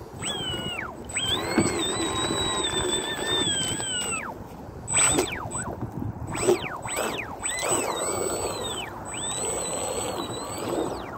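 Electric motor of a fast RC speedboat whining in several throttle bursts, the pitch rising as each burst starts, holding steady, then falling away as it is eased off, with a thin steady high whine under it.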